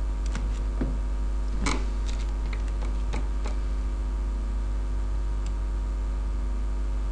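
Steady low mains hum on the recording, with about ten light computer-mouse clicks in the first three and a half seconds and one more a couple of seconds later.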